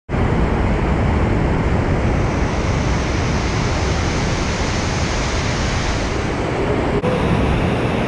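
Waterfall rushing down over rock slabs: a loud, steady rush of white water, with a brief break about seven seconds in.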